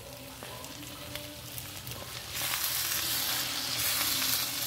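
Sisig (chopped pork) sizzling in a hot nonstick frying pan while a spatula stirs mayonnaise through it. The sizzle turns much louder and hissier about halfway through as the mixture is turned over.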